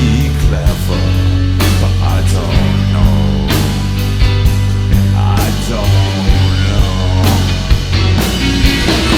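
Rock band playing live: two guitars, bass guitar and drums, with sustained bass notes under steady drum hits.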